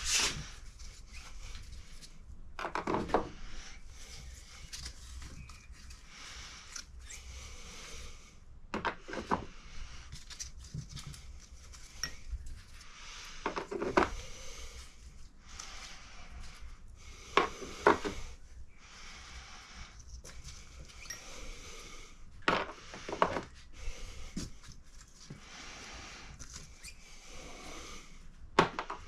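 Metal valve-train parts clinking and clattering as they are taken out of a cylinder head and set down. There is a short knock or clatter every few seconds, about six in all.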